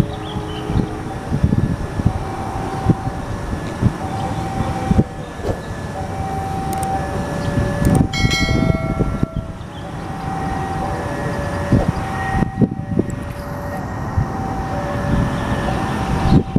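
A train running through a railway station: steady rumble with many sharp metallic knocks of wheels over the track. A repeating two-note tone sounds alongside it, and a brief high-pitched tone comes about eight seconds in.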